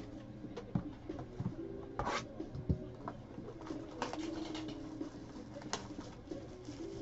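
Clear cellophane shrink wrap crinkling and rustling as hands peel it off a trading card box, with a soft knock a little under three seconds in. Low tonal phrases repeat faintly in the background every couple of seconds.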